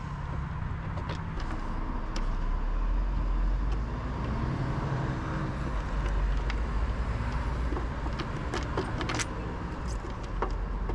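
A motor vehicle engine runs with a steady low rumble, with scattered light clicks and taps from a screwdriver and the plastic housing of a truck's rear combination lamp as its screws are loosened. The clicks bunch together about nine seconds in.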